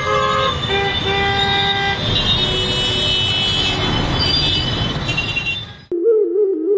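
Heavy road traffic with several vehicle horns honking repeatedly and overlapping. The noise cuts off suddenly near the end and a soft melody takes over.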